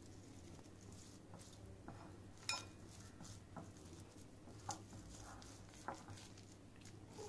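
Hands working spice marinade into raw chicken pieces in a bowl: faint wet squishing with scattered light clicks and knocks, the sharpest about two and a half seconds in.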